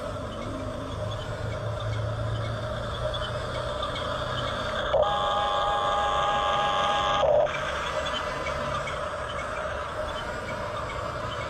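Small electric drive motors and plastic gearboxes of a Hunia 1569 RC bulldozer whining steadily. About five seconds in, a steady horn-like tone starts abruptly, holds for two seconds and cuts off.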